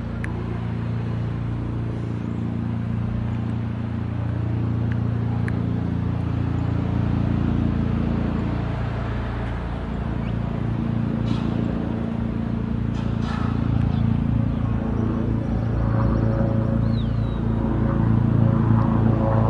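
Airbus H225M military helicopter approaching overhead: a steady rotor and turbine drone that grows steadily louder, with the rapid beat of the rotor blades coming through more clearly near the end.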